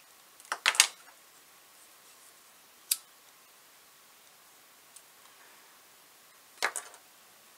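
A few short, sharp clicks and crackles of wires and small parts being handled by hand: a quick cluster near the start, a single click about three seconds in, and another cluster near the end, with quiet in between.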